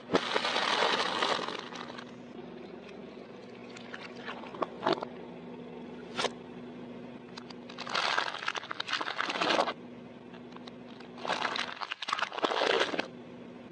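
A car tyre rolling slowly over soft and brittle objects and crushing them, in several crackling, crunching bursts. The loudest comes near the start, with a few sharp single cracks in between. A steady low hum runs beneath.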